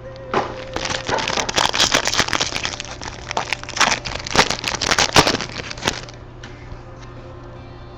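Plastic wrapping crinkling and crackling as a box of trading cards is unwrapped and opened, busy for about six seconds and then dying down to light handling clicks.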